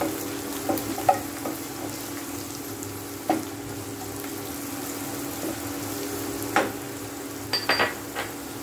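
Sliced onion, green chilli and carrot strips sizzling in oil in a non-stick kadhai as a wooden spatula stirs them, with short knocks of the spatula against the pan, several close together near the end. A steady low hum runs underneath.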